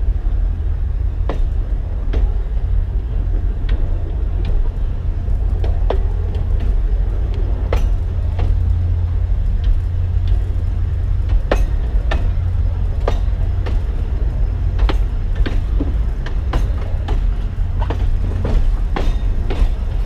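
Narrow-gauge forest railway train behind a DL-41 diesel locomotive, running steadily. It makes a continuous low rumble, with sharp clicks of the wheels over rail joints at irregular intervals, about one a second and coming closer together in the later part.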